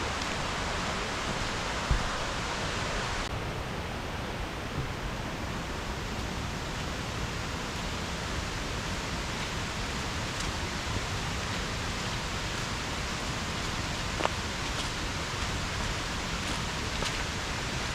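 Steady rushing noise of a mountain creek's running water, with a couple of faint knocks.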